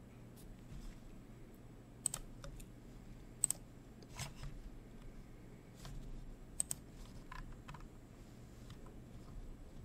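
Irregular computer mouse and keyboard clicks, about eight sharp clicks spread over several seconds, over a faint steady low hum.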